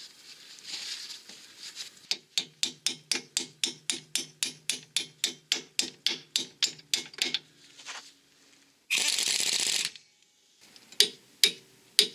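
Ratchet wrench clicking steadily, about four to five clicks a second, as the lower ball joint bolt is tightened. Later there is a short rasping burst and a few more clicks.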